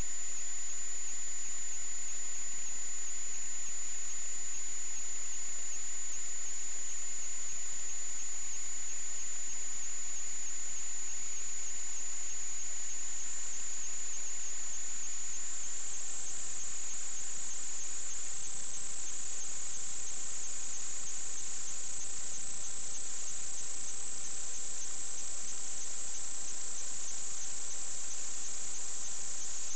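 A steady high-pitched whine over constant hiss. A fainter, lower tone fades out about halfway through, and the whine turns slightly wavering in the second half.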